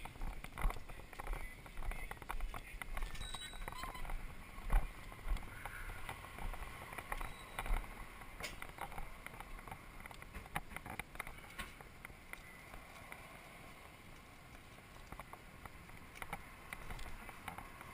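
Scattered knocks, clicks and rustles of handling and footsteps over the first half or so, then fainter steady background noise.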